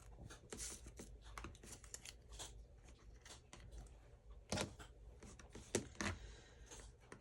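Faint rustling and crinkling of paper pieces being handled, with scattered light clicks and a few louder taps on the work surface, the loudest about four and a half seconds in and again near six seconds.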